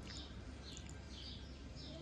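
A bird outside chirping over and over, short high calls about two a second, faint against a low background hum.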